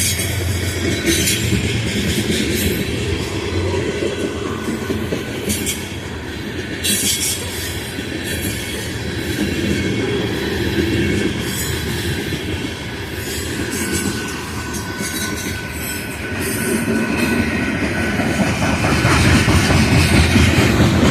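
BNSF train rolling past, its wheels clicking over rail joints with some wheel squeal. The rumble grows louder near the end.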